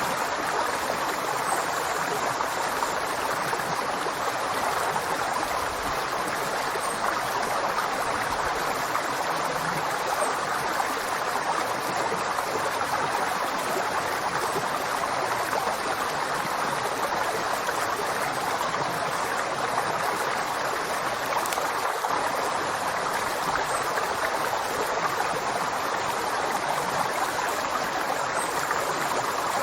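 River water flowing steadily over rocks, an even rushing burble with no pauses or changes.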